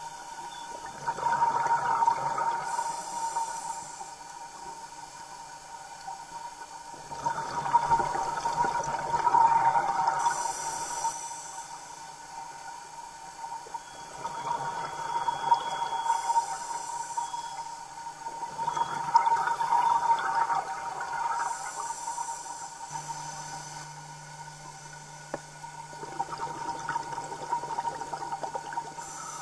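Scuba diver breathing through a regulator underwater: five bursts of exhaled bubbles gurgling, each lasting about three seconds and coming about every six seconds, with a short hiss as each breath is drawn. A steady thin whine runs underneath.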